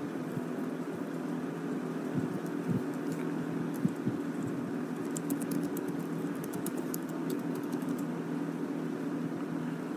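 Light clicking taps of typing on a phone, clustered about five to eight seconds in, over a steady low hum. A soft knock, the loudest sound, comes near four seconds.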